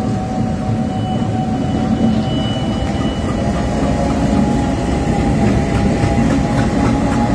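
Bangladesh Railway diesel-electric locomotive passing close by, its diesel engine running with a heavy, steady rumble, with thin steady high tones over it.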